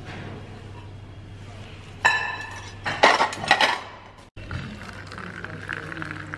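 Dishes and cutlery clinking and clattering in two short spells, about two and three seconds in, over a steady low hum of room noise.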